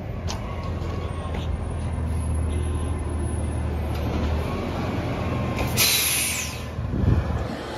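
Diesel engine of an automated side-loader garbage truck running as the truck pulls up, with a sharp air-brake hiss about six seconds in and a low thump just after.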